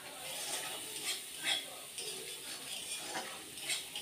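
Steel spatula scraping and stirring a thick spice paste in a black iron kadai, in about five irregular strokes, over a faint sizzle of frying oil: the masala being sautéed down.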